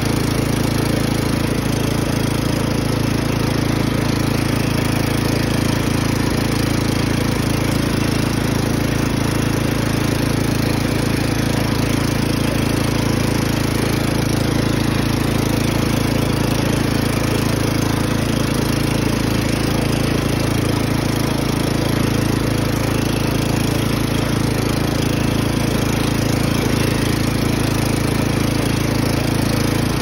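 Craftsman riding lawn mower's engine running steadily under way, holding an even pitch with rough mechanical noise over it.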